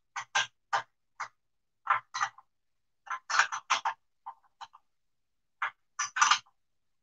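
Short, irregular clicks and knocks, about a dozen, as hands work on a belt-driven sprayer pump's head. There is a cluster of them a little after three seconds in and another near the end.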